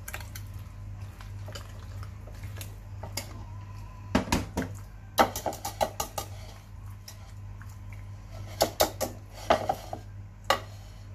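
A metal whisk clinking and scraping against a terracotta bowl as penne is mixed into a thick white sauce. The clinks come in quick clusters, with the loudest ones in the middle of the stretch.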